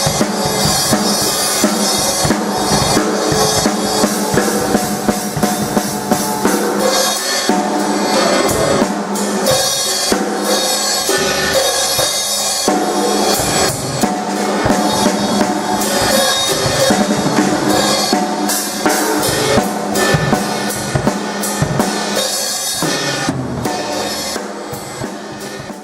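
Acoustic drum kit being played: a busy run of kick drum, snare and cymbal hits, dying away near the end.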